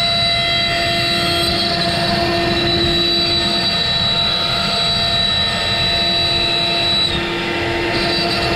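Avid CNC router spindle running steadily as its bit cuts a profile in a wooden board: a loud, steady whine over cutting noise. The whine dips briefly about seven seconds in, then picks up again.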